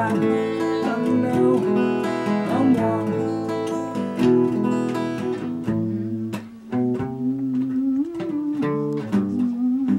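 Acoustic guitar played solo: a steady run of picked notes and chords.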